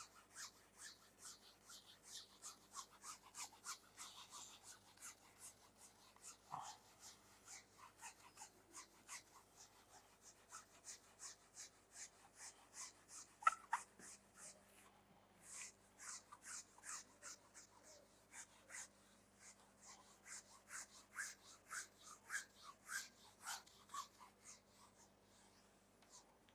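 Faint whiteboard eraser wiping a whiteboard clean in quick repeated strokes, about two or three a second, with a brief pause about halfway through. One louder sharp knock comes about halfway through.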